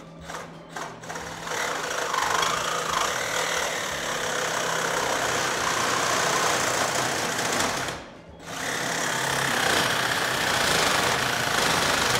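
Cordless reciprocating saw (sawzall) with a metal-cutting blade sawing through the steel top tube of a Harley-Davidson Sportster frame. A few short starts, then steady cutting, with a brief stop about eight seconds in before it cuts on.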